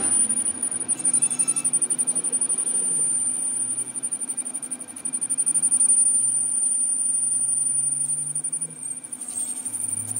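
Metal lathe turning a steel gear shaft while the tool bit cuts it, giving a steady high-pitched squeal over the lathe's running noise.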